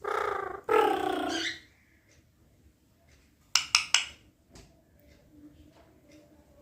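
Pet talking parrot giving two short, voice-like calls in quick succession, followed about two seconds later by a quick run of four sharp clicks.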